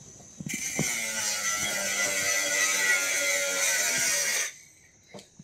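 Handheld power tool cutting a piece of sheet metal, a high, gritty whirring that runs for about four seconds and then stops.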